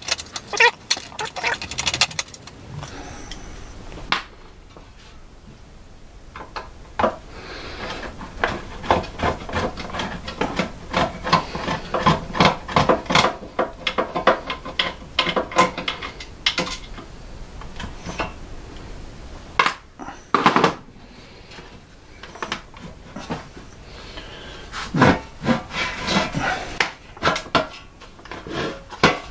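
Irregular clicks, knocks and rattles of hand tools and metal parts as a Mitsubishi E500 VFD is unscrewed and worked out of its sheet-metal case, with a quieter pause about four seconds in.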